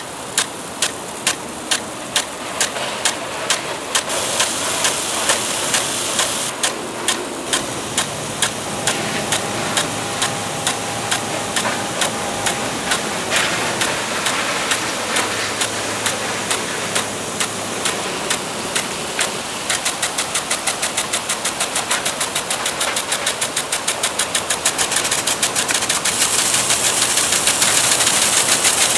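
Impact sprinkler ticking about three times a second over the hiss of its water spray. About two-thirds of the way through, the ticks quicken to a fast rattle.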